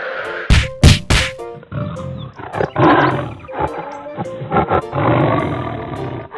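Background music with loud animal roars. There are a few sharp bangs about half a second to one and a half seconds in.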